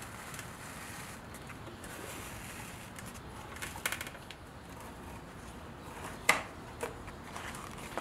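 Vinyl wrap being peeled by hand off a plastic center console, with a short crackle about halfway through, a sharp snap a little past six seconds in, and a smaller snap just after it.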